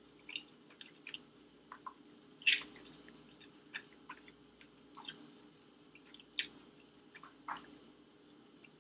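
A person eating thick, chewy instant jjajangmyeon noodles: chewing and drawing in noodles, with irregular short wet smacks and clicks of the mouth, the loudest about two and a half seconds in.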